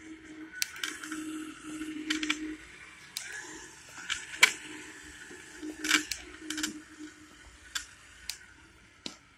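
Fire Bird V robot's small DC geared drive motors whirring in short spells, starting and stopping several times as the set speed changes, and dying away near the end. Sharp clicks and taps from handling the robot cut across the whir, loudest about four and a half and six seconds in.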